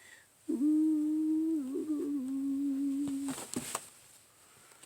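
A man humming with his mouth closed: a held note, a brief wobble about halfway through, then a slightly lower held note that stops after about three seconds.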